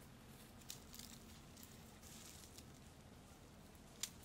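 Quiet rustling of leaves and twigs with a few faint clicks, then one sharp snap about four seconds in as a small fruit is plucked from its stem.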